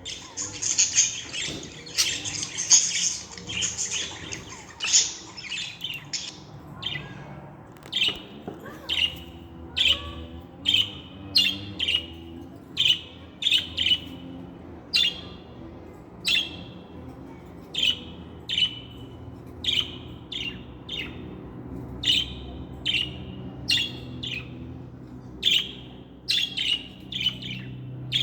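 Budgerigar (pet budgie) vocalising: a dense, fast warbling chatter for about the first six seconds, then a long string of short, sharp chirps, roughly one a second.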